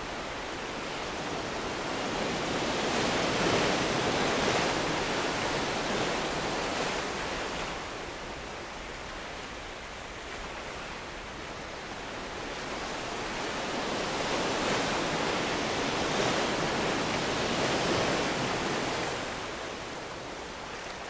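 Ocean surf on a beach: waves breaking and washing in. The rush swells up twice, about three to five seconds in and again around fifteen to eighteen seconds, and eases off between.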